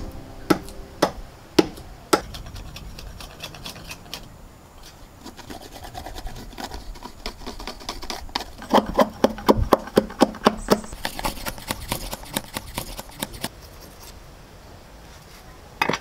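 Kitchen utensils knocking against pots and a wooden surface while food is prepared. About halfway through comes a quick, even run of strokes, about five or six a second, followed by a short hiss.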